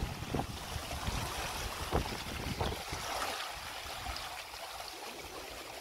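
River in flood rushing past a stone bridge pier, a steady rush of water. Wind buffets the microphone in low gusts during the first half and dies away about three seconds in.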